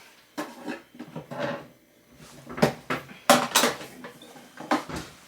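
Kitchenware and groceries clattering as they are handled and set down: a run of sharp knocks and clinks, loudest about three seconds in.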